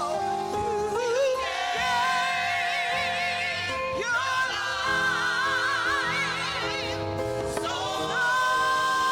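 Slow gospel music with long held notes that waver in pitch, several notes sounding together and moving to new notes every second or two.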